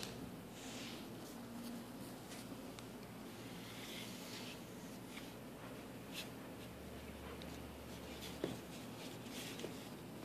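A husky puppy chewing a cotton rope toy: faint, scratchy rustling of rope fibres and occasional clicks of teeth, with a sharper tick about eight and a half seconds in.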